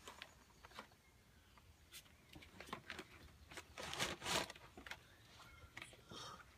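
Faint scattered taps and rustles, loudest in a brief rustle about four seconds in.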